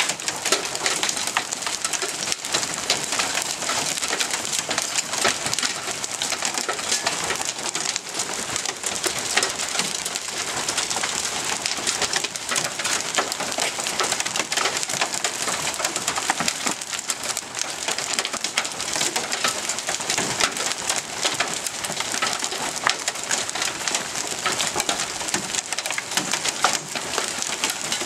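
Small hail, up to half an inch across, coming down steadily with rain: a dense patter of countless small ticks and impacts.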